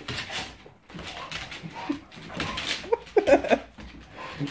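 A dog whimpering briefly about three seconds in, among quick clicks and scrabbling of claws on a hardwood floor as it pounces at a small vibrating toy robot.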